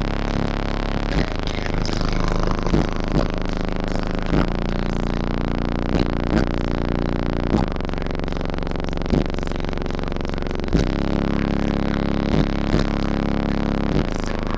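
Loud, bass-heavy electronic music played through a car audio system built around a large array of subwoofers, with deep sustained bass notes under a steady beat.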